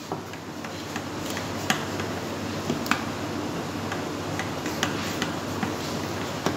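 Kitchen knife scoring a soft slab of rice-flour sweet in an aluminium pan, the blade knocking the metal pan in light, irregular clicks over a steady background hum.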